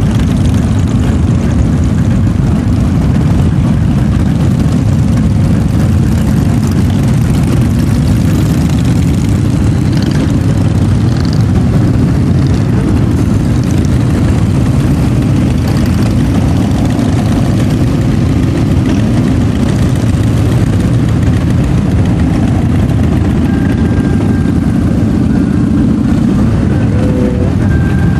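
Engines of a large group of motorcycles, cruisers and sport bikes, riding past in a continuous stream, blending into a loud, steady drone.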